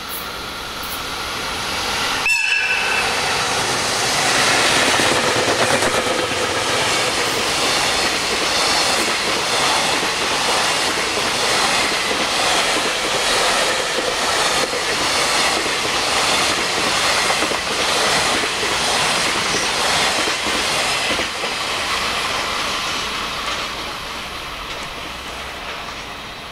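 EF65 electric locomotive gives one short, high whistle blast about two seconds in, then passes hauling a container freight train. The wagons' wheels clack rhythmically over the rail joints, loudest as the locomotive goes by and fading near the end.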